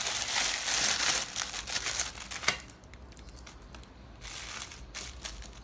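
Packaging crinkling as it is handled, loud for about the first two and a half seconds. After that it is much quieter, with a few light clicks and taps.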